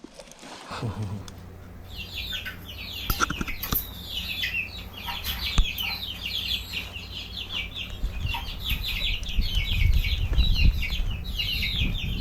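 A flock of chickens calling: a dense chorus of short, high, repeated calls that builds about two seconds in and carries on, over a low steady hum.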